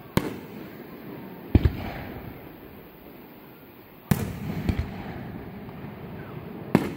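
Aerial fireworks shells bursting: a sharp bang just after the start, a quick double bang about a second and a half in, another loud bang about four seconds in with a smaller one after it, and a last bang near the end. Each bang trails off in a low rumble.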